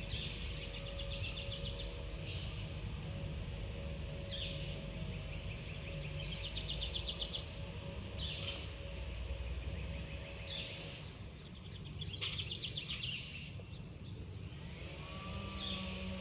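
A small songbird singing short, buzzy trills about every two seconds over a steady low outdoor rumble.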